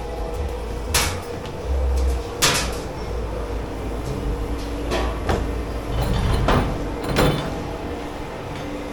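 Sharp knocks and clatter of dishwashing gear being handled, about six in all and two close together near the middle, over a steady hum of kitchen machinery.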